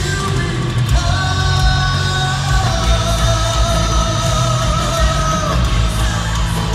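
Heavy metal band playing live in an arena, heard from the audience: distorted guitars, heavy drums and sung vocals, with a long held note through the middle.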